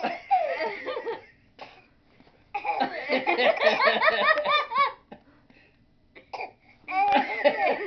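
Coughing and a 9-month-old baby's laughter: a burst at the start, a long run of rapid laughs in the middle, and another burst near the end. The coughs include the baby imitating an adult's cough.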